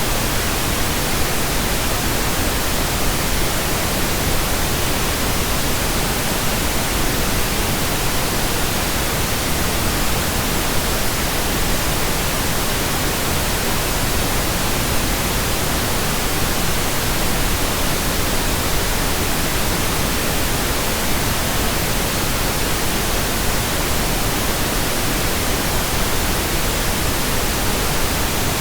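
Pink noise: a steady, even hiss spread across the whole range from deep to high.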